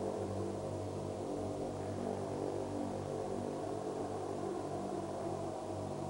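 Ambient electronic soundtrack drone: low sustained tones held steady under a dense, grainy rumbling texture, easing slightly in level.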